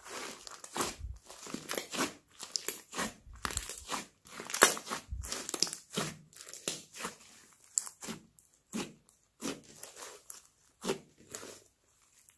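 Thick slime studded with small foam beads being kneaded and squeezed by hand, giving an irregular run of short crackly, crunchy squishes, about two a second, some louder than others.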